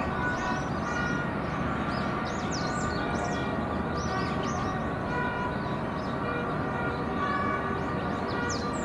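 Steady low rumble of harbour background noise, with many short high chirps and brief tones coming and going over it.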